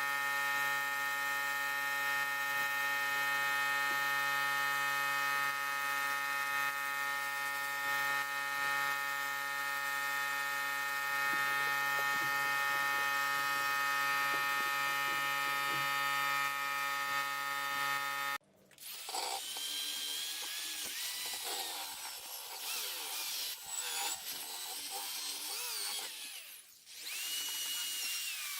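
Electric power tool motor running at a steady speed with a constant whine, cleaning rusty metal. About two-thirds in the sound cuts off abruptly and a higher-pitched rotary tool takes over, its whine wavering up and down as it bears on the metal.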